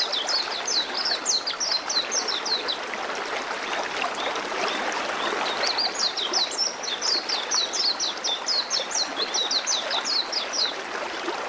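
River water running steadily, with a small songbird singing two bouts of quick, high, falling chirps over it: one at the start and another from about six seconds in.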